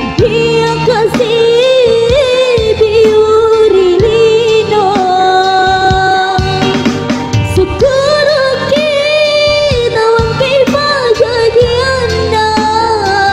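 A young woman singing a melodic song through a handheld microphone over instrumental accompaniment, with long held notes that waver and bend in pitch.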